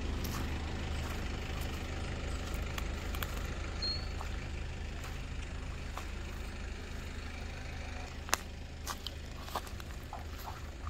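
A vehicle engine idling steadily, with a few light clicks and knocks in the second half.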